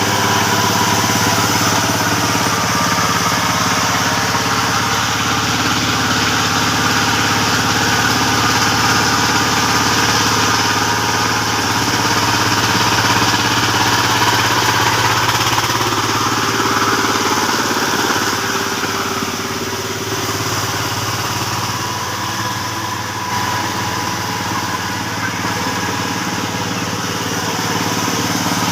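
Tractor engine running steadily while ploughing a paddy field, dropping slightly in level about two-thirds of the way through.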